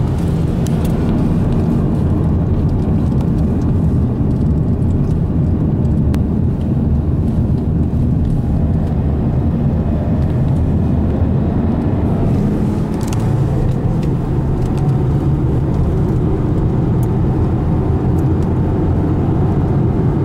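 Steady low rumble of a car's engine and tyres at cruising speed, heard from inside the cabin.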